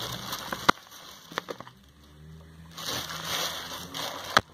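Plastic packaging crinkling as a wrapped bag is handled, in two spells with a quieter gap between. Sharp clicks come about a second in and near the end.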